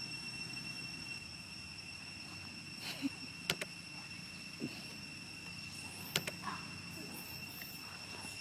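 Steady, high-pitched insect drone with a low rumble underneath, broken by a few sharp clicks around the middle.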